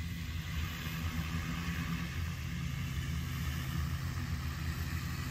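Steady low hum of a G200 hexacopter crop-spraying drone's rotors as it flies a spray pass, with an even hiss underneath.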